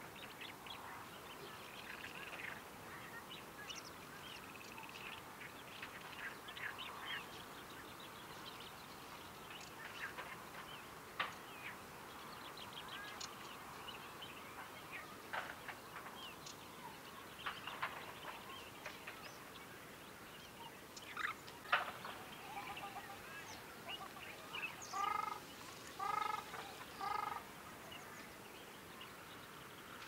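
Ruddy shelducks giving their soft, rolling honking call, with three louder calls close together near the end, amid short chirps from small birds.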